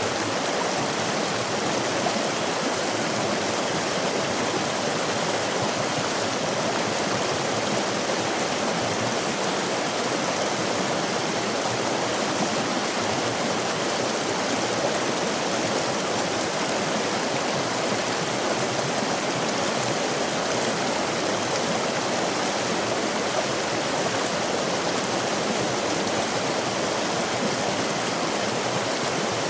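Stream water rushing and babbling over rocks, a steady, unbroken flow.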